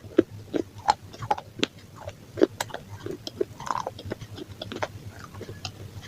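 A person chewing pizza close to the microphone, with irregular crisp crunches and crackles several times a second.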